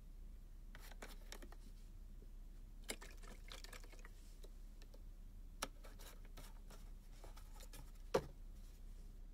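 Quiet room with scattered faint clicks and light knocks, small handling noises, the loudest a single knock about eight seconds in.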